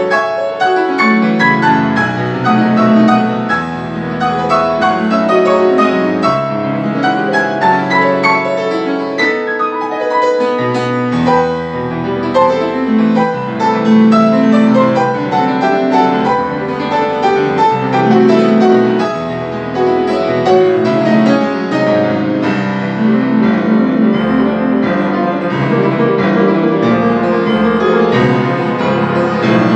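Solo grand piano played fast: dense, rapid runs and chords of classical concert repertoire, loud and unbroken.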